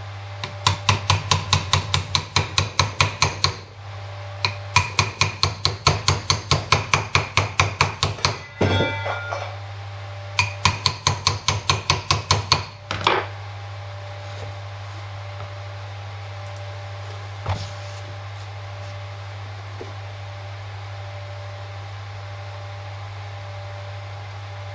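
A hammer tapping a new universal joint's bearing caps into the yoke of a Land Rover Series front half shaft. It comes in three quick runs of sharp metallic taps, about four a second, and then a single tap some seconds later.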